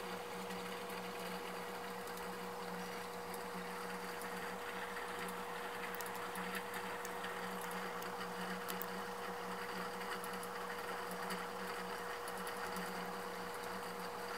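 Steady machine-like hum with a constant mid-pitched tone and a hiss, unchanging throughout, with a few faint ticks around the middle.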